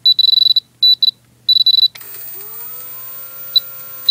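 Spektrum DX6i transmitter beeping as its sub-trim value is stepped through: a run of high beeps, some long, some short. About two seconds in, an electric motor spins up with a rising whine and keeps running at low speed with the throttle stick all the way down, the sign that the motor still gets a little power, while short beeps go on.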